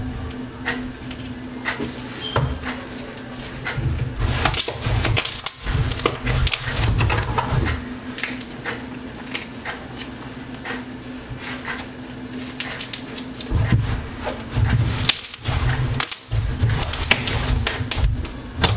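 Clear-glue slime being squished and stretched by hand, giving off many small crackling pops and clicks from trapped air bubbles, along with some dull thumps.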